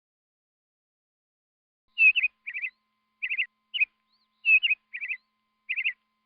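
A small bird chirping: after about two seconds of silence, seven quick clusters of short, high chirps follow one another about half a second apart.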